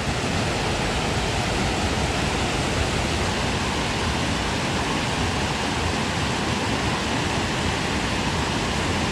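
Waterfall rushing, a steady even roar of falling water.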